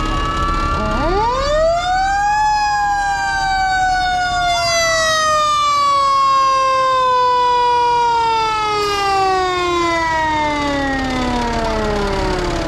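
Pierce fire engine's siren sounding. One wailing tone is already going at the start; about a second in a second tone climbs fast to a high wail, and then both slide slowly down in pitch as the siren winds down.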